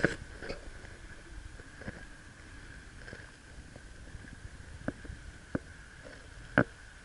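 Scattered sharp knocks and taps of gear aboard a sit-on-top kayak on calm water, the loudest right at the start and near the end, over a faint steady hiss.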